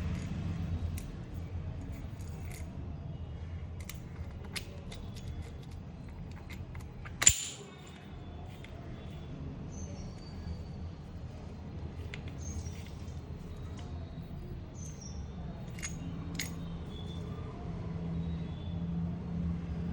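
Scattered light metallic clicks and clinks of tools and parts being handled over a steady low hum, with one sharp metal knock about seven seconds in.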